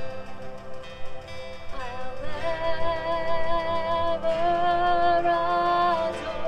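Worship song with a woman singing long held notes over acoustic guitar.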